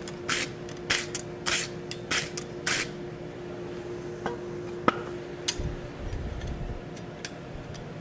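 Steel wire brush scrubbing scale off a red-hot steel bar on the anvil face: about five quick scraping strokes over the first three seconds. A few sharp metallic clicks follow as the bar is handled in the tongs.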